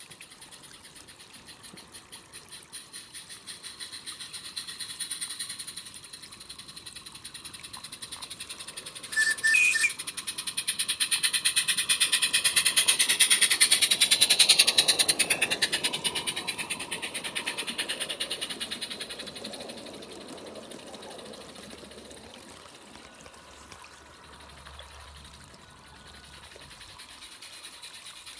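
Live-steam garden-scale model of the narrow-gauge locomotive Owain Glyndŵr approaching with a rapid, even chuff. It gives a short whistle about nine seconds in. The chuffing is loudest as it passes, about fourteen seconds in, then fades away.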